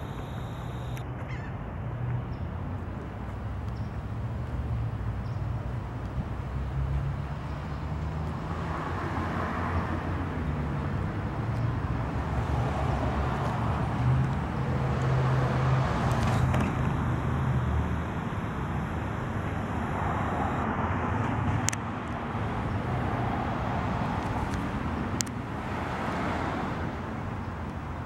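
Steady outdoor rumble of road traffic, with several slow swells as vehicles pass and two sharp clicks near the end.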